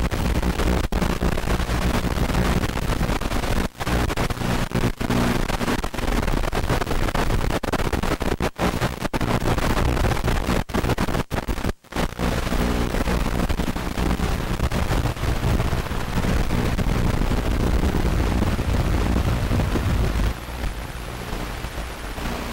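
Loud static hiss with a steady low buzz from an analog 5.8 GHz FPV video link's audio, cutting out briefly several times, most deeply about twelve seconds in, as the signal breaks up at range.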